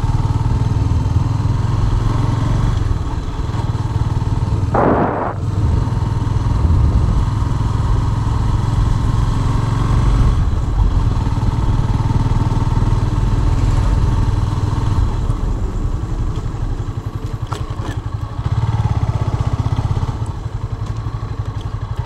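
Motorcycle engine running as the bike is ridden, a steady low rumble that eases slightly for a few seconds near the end.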